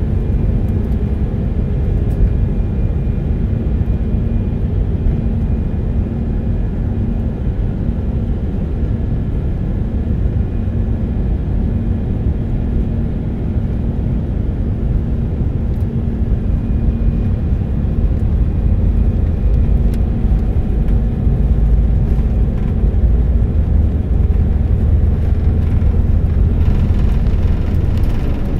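Cabin noise of an Airbus A319 on its takeoff roll: the IAE V2500 turbofans at takeoff thrust over a steady low rumble from the runway. It grows a little louder and brighter in the last couple of seconds as liftoff nears.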